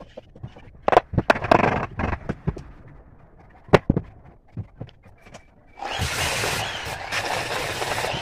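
Loose wooden pieces knocking and clattering as they are handled and fitted together, with one sharp wooden knock just before four seconds. About six seconds in, an angle grinder fitted with a sanding disc starts up suddenly and runs steadily, sanding the wood.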